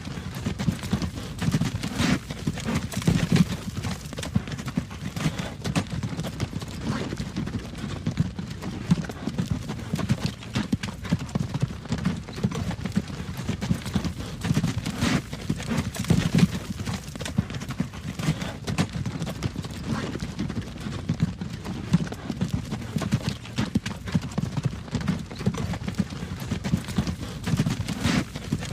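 Horse-drawn wagon moving along a road: continuous clip-clop of the horse's hooves, with the rumble of the wagon running underneath.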